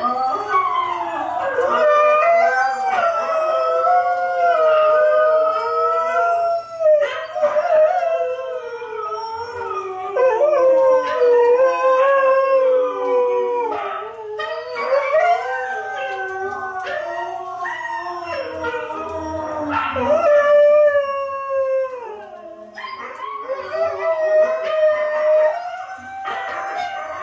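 Husky howling along with husky howls played back from a video, several long howls overlapping and wavering up and down in pitch.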